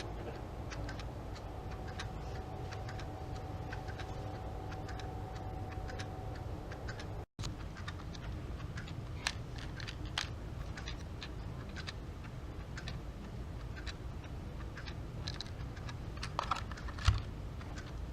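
Small plastic travel alarm clock being handled: scattered light clicks at uneven intervals, with a louder click and knock near the end.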